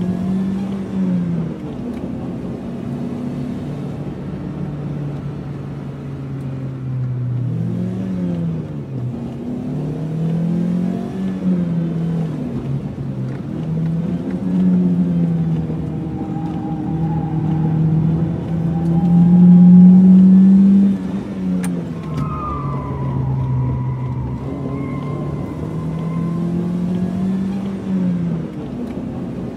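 Car engine and road noise heard from inside the cabin while driving, the engine note rising and falling again and again as the car speeds up and slows. It is loudest about twenty seconds in.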